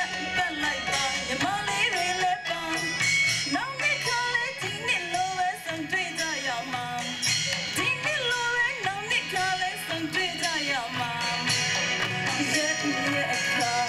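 A woman sings a song into a microphone over a recorded backing track with a steady beat and bright, regular high percussion, amplified through PA loudspeakers.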